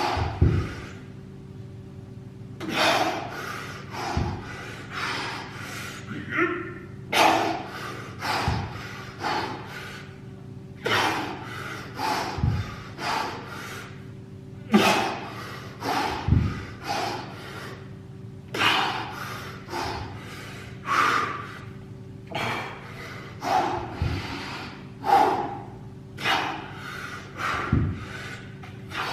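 A person breathing hard during a high-intensity workout: forceful breaths in and out about once a second, with a low thud every few seconds.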